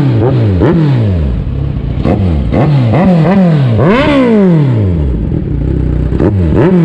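Kawasaki Z1000's inline-four engine revved in quick throttle blips through an Austin Racing carbon slip-on muffler held on by hand. The highest rev comes about four seconds in, followed by a short steady idle, then more blips near the end.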